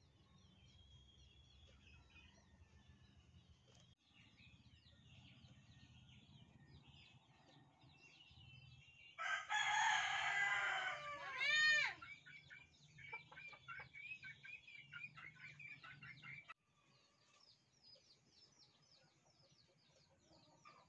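A bird's loud call starting about nine seconds in and lasting nearly three seconds, with fainter bird chirps throughout and a run of short chirps after it.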